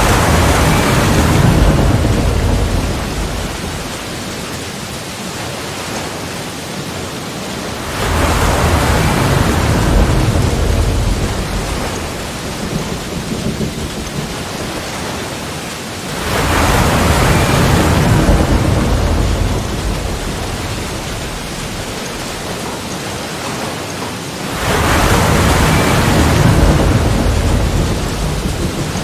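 Sea waves breaking, a surge of surf about every eight seconds, four in all, each coming in suddenly and washing out over a few seconds under a steady hiss of water.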